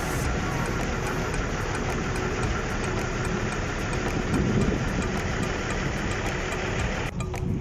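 Bus engine idling, a steady rumble.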